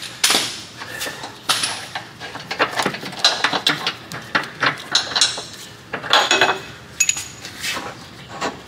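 Loosened steel control arm bolts being pulled out by hand and clinking against each other and the surrounding metal: an irregular run of light metallic clinks and taps.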